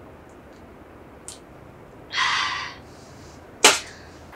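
A loud breathy exhale after a swallow from a drink can. Then the aluminium can is set down on a table with a sharp knock near the end.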